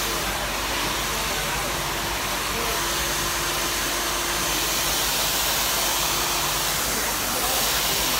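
Handheld hair dryer running steadily, blowing air onto hair during a blow-dry: an even rush of air with no breaks.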